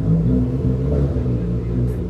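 A Ford Fiesta's engine running with a deep rumble and being revved: the revs come up sharply at the start, hold for about a second and a half, then ease off near the end.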